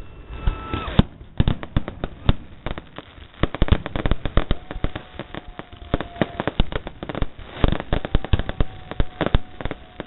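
Firecrackers going off in a rapid, irregular string of sharp bangs, several a second, with a steady tone held for a second or two, twice, in the second half.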